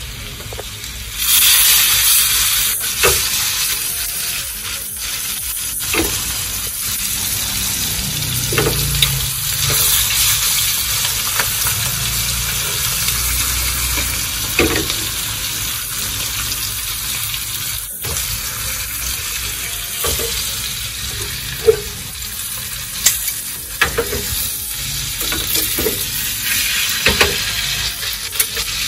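Beef steaks sizzling as they fry in hot garlic butter and oil in a nonstick pan. The sizzle grows sharply about a second in, with clicks and scrapes of metal tongs against the pan.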